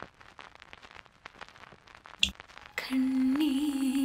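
Faint crackle, then a sharp click about two seconds in as a studio monitor speaker is switched on. Near the end, music starts with a low held note that wavers slightly.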